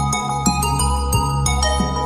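Background music: chiming, struck notes ringing over sustained chords and a steady low bass.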